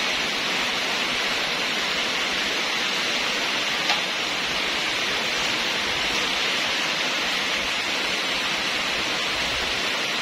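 Steady, even hiss with no distinct events, dropping off abruptly at the end.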